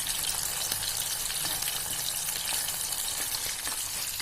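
Marinated chicken 65 pieces deep-frying in hot oil in a pan: a steady sizzle with small crackles and pops, as the coated chicken cooks until it is roasted on all sides.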